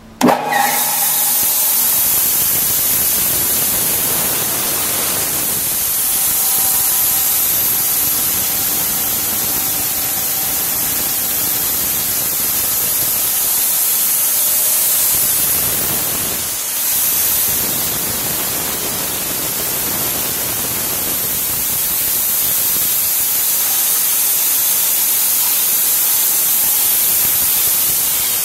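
ZL-60V band sawing machine switched on with its push button, starting at once and then running steadily with a loud, even hiss.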